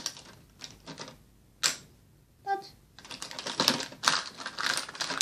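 Small plastic makeup items clattering and knocking as a basket of makeup is rummaged through by hand. There is a sharp knock about a second and a half in, and denser rattling through the last two seconds.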